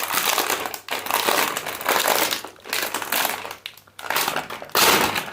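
Plastic chip bag crinkling and rustling in irregular bursts as it is handled and pulled open, with a louder burst near the end.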